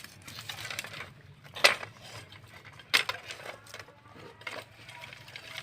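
Kitchen utensils and dishes clinking and knocking, with two sharp knocks about a second and a half apart.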